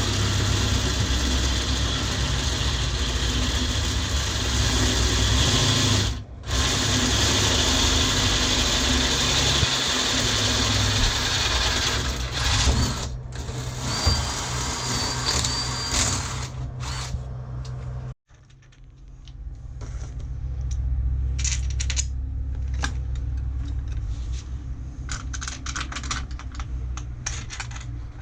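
A power tool running hard against steel for most of the clip, a dense steady whir with a low hum and a brief thin squeal, stopping for a moment twice. It cuts off abruptly, and then many quick metallic clicks and taps sound over a lower hum.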